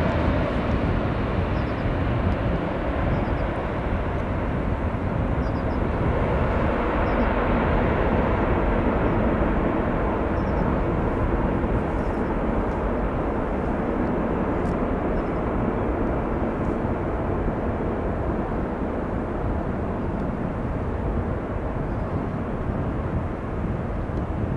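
Passing jet airliner engines, a loud steady rushing noise that slowly eases over the second half and cuts off suddenly at the end.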